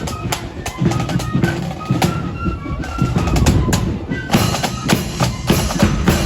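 Marching accordion band playing a tune to bass drum and snare drums. The drumming grows busier and brighter about four seconds in.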